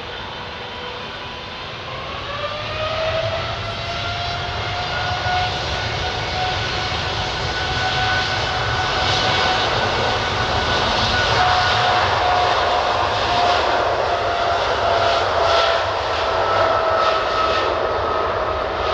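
Boeing jet airliner's engines spooling up: a steady whine rises in pitch about two seconds in and then holds, while the rumble of the engines grows steadily louder and rougher.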